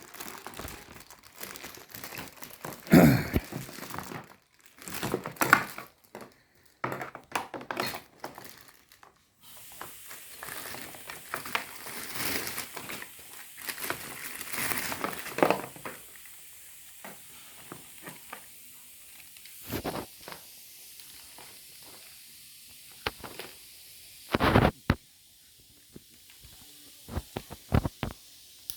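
Packaging being handled and crinkled, with irregular rustles, clicks and knocks; busier in the first half, with a loud knock about three seconds in and another near the end, then only scattered clicks.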